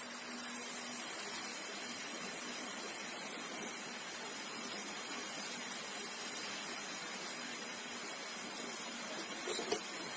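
Brazing torch flame hissing steadily as it heats the copper pipe joints of an air conditioner's four-way reversing valve, with a small click near the end.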